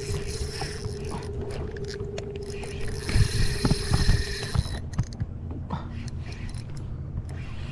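Penn spinning reel being cranked against a hooked fish: the gears whir steadily as the handle turns, stopping about four and a half seconds in, with scattered clicks of handling.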